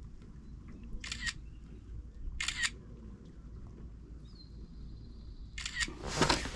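Camera shutter sounds, four short clicks spread over a few seconds, the last two close together near the end, as the just-measured bass is photographed for the tournament.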